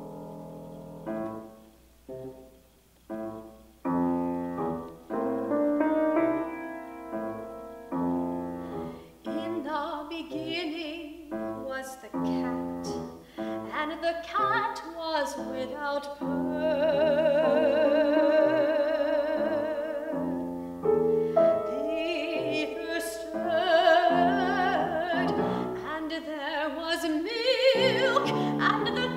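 Grand piano plays a sparse introduction of separate chords. About a third of the way in, a classically trained soprano begins singing with wide vibrato over the piano accompaniment.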